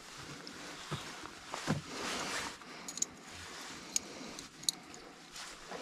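Faint handling of squid and crab bait being threaded onto a baiting needle: soft rustling and a few small sharp clicks over a steady background hiss.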